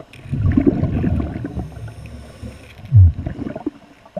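Scuba regulator exhaust: a diver's exhaled breath bubbling out underwater in a low, gurgling rumble for about two seconds, with a short, louder low thud about three seconds in.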